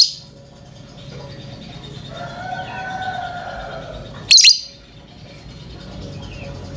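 Lovebird giving short, piercing, shrill calls, one right at the start and another about four seconds later, with a fainter held tone about two seconds in; a lovebird call in breeding mood, of the kind played to set other lovebirds calling.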